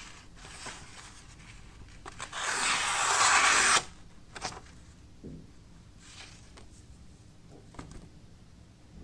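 Freshly sharpened kitchen knife slicing through a sheet of paper, the usual test of a sharpened edge: one loud hissing cut lasting about a second and a half, a couple of seconds in, that stops abruptly. Quieter paper rustles and light handling taps come before and after it.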